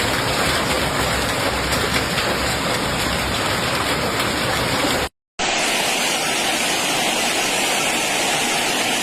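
Hailstorm: a dense, steady hiss of hail and heavy rain pelting down. It breaks off for a moment about five seconds in, then comes back higher and hissier.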